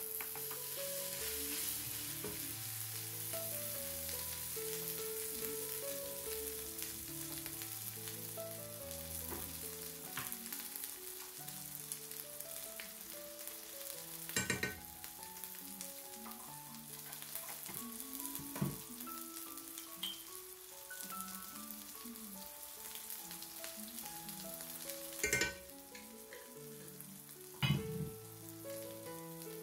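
Food sizzling steadily as it fries in an enamelled cast-iron skillet, with three sharp knocks of a utensil against the pan about halfway, near the end and just after. Soft background music plays underneath.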